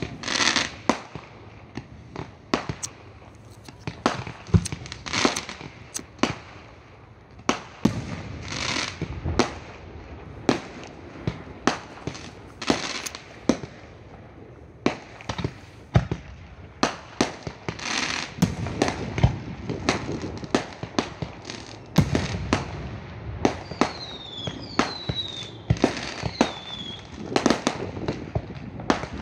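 Fireworks display: a continual run of sharp bangs and crackling bursts, at times several a second. Near the end, several whistles glide downward in pitch.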